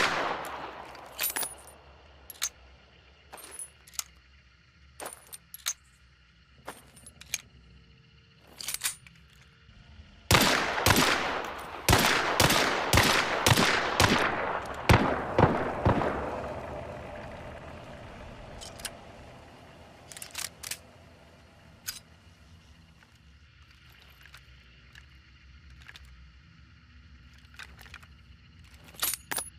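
Pistol gunshots: a few single shots in the first seconds, then a rapid string of about a dozen shots between about ten and sixteen seconds in, with a ringing echo that fades away. Fainter sharp clicks and pops come in the gaps.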